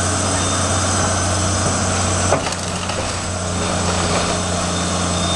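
A heavy demolition machine's diesel engine runs steadily while it tears into a wood-framed house, with wood cracking and splintering. A sharp crack comes a little over two seconds in.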